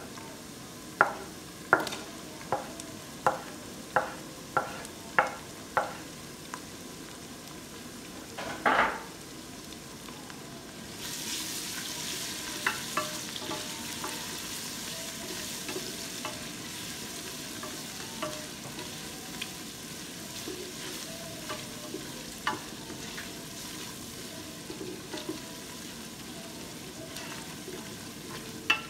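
Sliced onions sizzling in hot oil in a pressure cooker pot, with a series of sharp knocks against the pot, about one every half second, in the first few seconds. About 11 seconds in the sizzling grows louder as garlic and ginger paste goes into the oil, and a wooden spatula then stirs it through with scattered clicks and scrapes against the pot.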